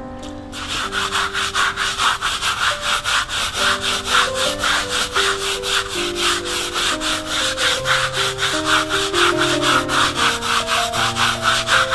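Stiff plastic hand scrub brush scrubbing mold off wet, soapy concrete: quick back-and-forth strokes, about four a second, starting about half a second in. Background music plays underneath.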